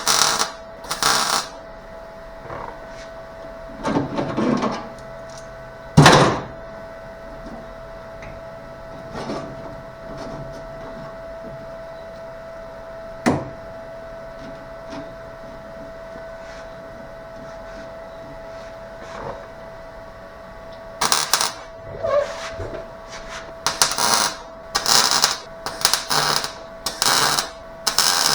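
Welder laying short tack welds on sheet steel: brief crackling bursts of about half a second each, a few spaced out at first and then a quick run of them near the end, over a steady electrical hum.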